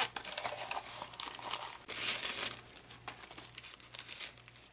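Sunglasses being unpacked from a zippered case and plastic wrapping: irregular crinkling and rustling of plastic, loudest about two seconds in.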